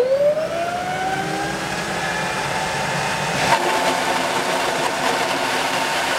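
PowerSpout PLT Pelton-wheel micro-hydro turbine spinning up just after being turned on, fed at 160 m of head, its maximum approved pressure and noisiest condition. A steady rush of the water jet comes with a whine that rises in pitch over the first few seconds and then holds steady, with one brief tick about halfway.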